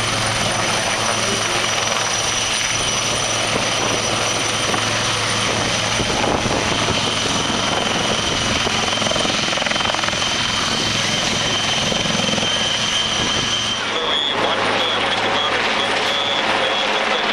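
Super Lynx 300 Mk6 helicopter hovering close by: steady rotor beat under a high turbine whine. About fourteen seconds in, the sound cuts abruptly to a different helicopter, an Atlas Oryx overhead, with a thinner low end and a different high whine.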